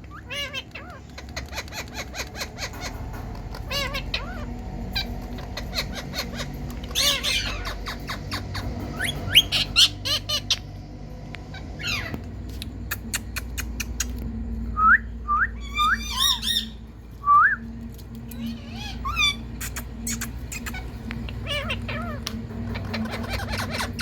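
Indian ringneck parakeet calling: a busy run of chirps and squawks with short rising whistles, several in quick succession about two-thirds of the way through. A steady low hum sits underneath.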